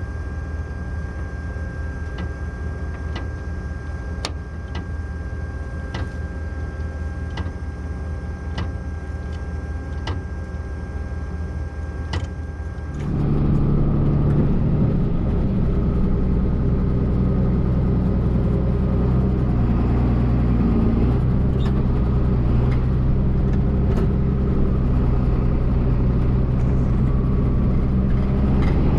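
Heavy diesel farm machinery running steadily, with a faint tick about every second and a half and a thin steady whine. A little before halfway the engine noise jumps abruptly louder and deeper.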